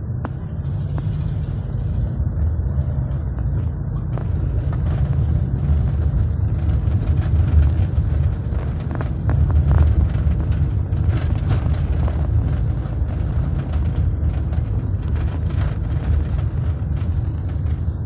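Steady low rumble of vehicle engines, with scattered light clicks and knocks.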